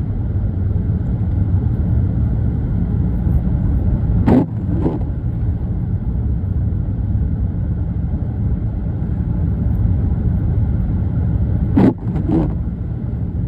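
Steady low rumble of a car's engine and road noise heard inside the cabin, with the windshield wipers sweeping twice, about seven seconds apart, each sweep a pair of quick knocks half a second apart.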